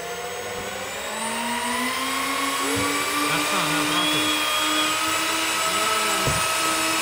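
Twin electric ducted fans of a radio-controlled Boeing 737 model running up: a high whine of several tones that climbs in pitch and grows louder over the first couple of seconds, then holds steady.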